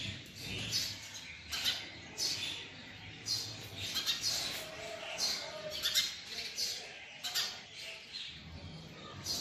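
Female house sparrow chirping: short, high calls repeated roughly every half to three-quarters of a second.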